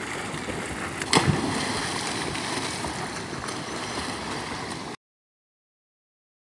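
A person plunging into a canal with a sharp splash about a second in, then water churning and sloshing as he swims. The sound cuts off to silence about five seconds in.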